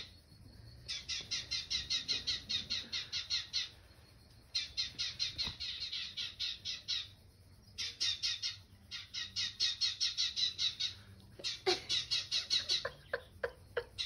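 Small birds chirping from a television's bird-feeder video, heard through the TV speaker: quick runs of about five high chirps a second, in bouts of two to three seconds with short pauses between. A few short ticks come near the end.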